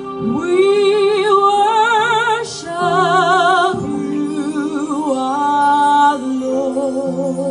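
A woman singing into a microphone in long, held notes with wide vibrato, over steady held accompaniment chords.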